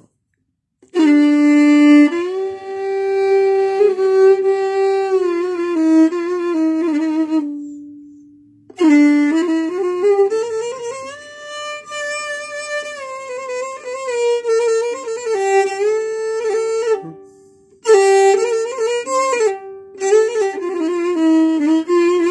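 Solo violin improvising a short Arabic-style taqsim in an eastern maqam, with slides between notes and wide vibrato on held notes, in three phrases separated by brief pauses.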